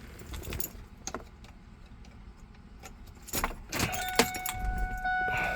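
Car keys jangle as the key goes into the ignition. About four seconds in, the N.C.N.S (No Code No Start) immobiliser starts a steady electronic beep with brief breaks, its warning that the code hasn't been entered and the truck won't start.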